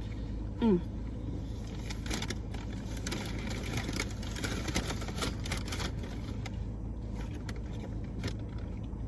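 Eating sounds: scattered clicks and rustles of food wrappers and chewing over a steady low hum, with a short falling 'mm'-like voice sound just under a second in.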